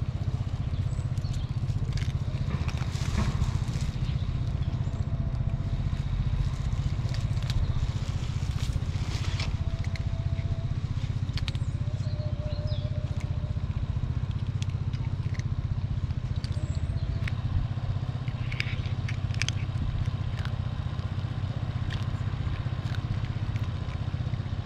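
Tuxedo cat crunching dry kibble, heard as scattered crackly clicks over a steady low rumble.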